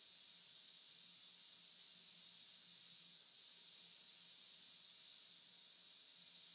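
Faint steady hiss with a low hum underneath: the recording's background noise, with no distinct event.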